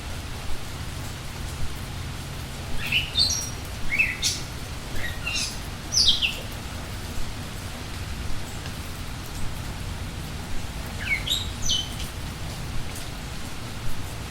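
Steady rain with birds singing over it: a run of quick chirps and whistles from about three to six seconds in, and another short phrase around eleven seconds in.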